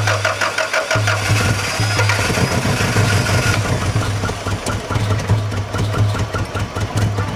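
Subaru Impreza's flat-four engine, boosted by a portable jump starter after sitting through the winter, cranking and catching about a second in. It runs at raised revs for a couple of seconds, then settles to a steady idle with a light regular tick.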